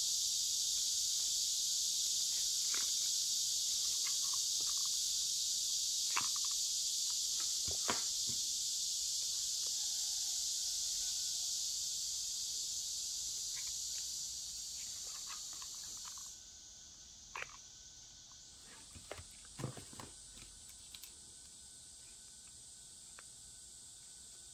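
Soft clicks and light crinkles of a folded-paper crown being handled as small bead flower decorations are pressed onto it, over a steady high hiss. The hiss drops to a lower level about two-thirds of the way through.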